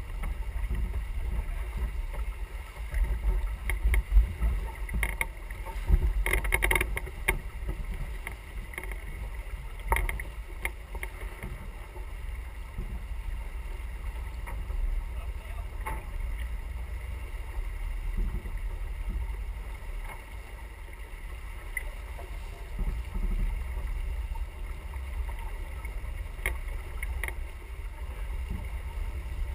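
Wind buffeting the microphone and water rushing past the hull of a sailing yacht under way, with a few short knocks about four to seven seconds in and again around ten seconds.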